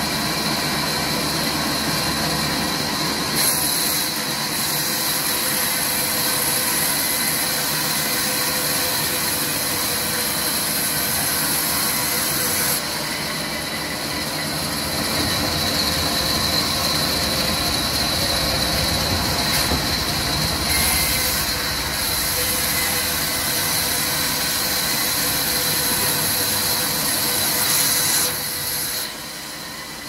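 Sawmill's vertical band saw running and ripping a log lengthwise: a steady loud whine and hiss of the blade cutting wood over the machine's hum. The high cutting hiss eases briefly about halfway through and drops off near the end as the cut finishes.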